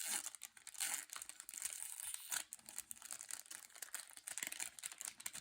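Foil booster pack wrapper crinkling and tearing as it is pulled open and handled, a dense crackle that stops near the end.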